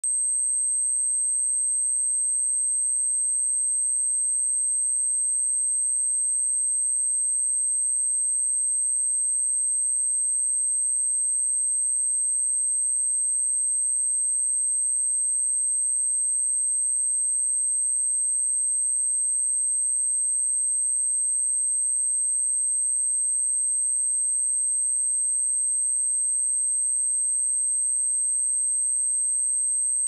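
A steady, high-pitched pure sine tone at 8293 Hz, held at a constant level without change, played as a speaker test and cleaning tone.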